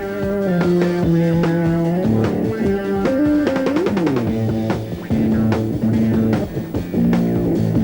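Rock band playing live: electric guitar lines with held notes over a drum kit, with a note bent down and back up about halfway through.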